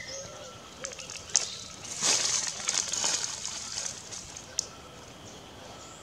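Outdoor woodland ambience with rustling noise and a couple of sharp clicks, over faint distant bird notes.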